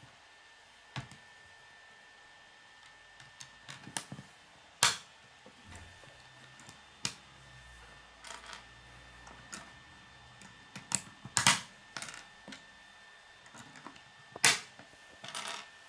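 Plastic K'nex pieces clicking as rods snap into connectors and parts tap on a wooden table: scattered sharp clicks, several in quick succession about two-thirds of the way through.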